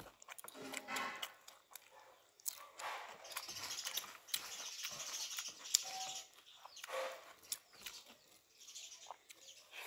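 A person chewing a mouthful of rice and greens close to the microphone, with many small wet clicks and lip smacks.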